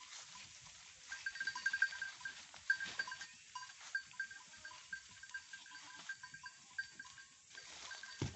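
Goats being herded, with many short high notes repeating irregularly and faint rustling.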